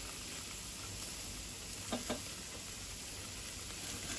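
T-bone steaks sizzling steadily on a hot cast-iron sear grate, freshly basted with garlic oil. Two short clicks come about two seconds in.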